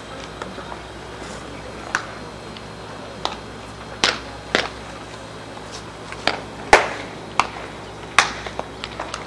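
Baseballs smacking into leather gloves during throwing practice: about ten sharp pops at irregular intervals from several pairs of players, the loudest about two-thirds of the way through.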